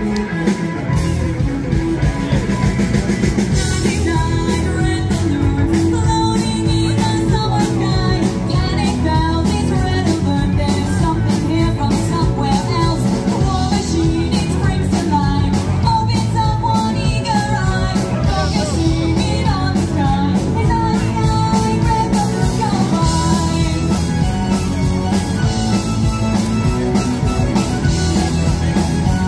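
Live band playing an upbeat song over a loud PA: a steady drum beat, electric guitars, and a singer's voice.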